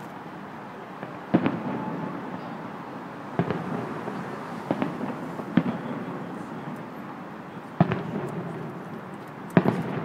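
Aerial fireworks shells bursting: six sharp booms one to two seconds apart, each trailing off in a rumbling echo.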